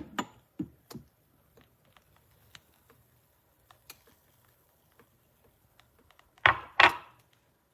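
Hard objects being handled: scattered small clicks and taps, then two loud knocks or clatters close together about six and a half seconds in.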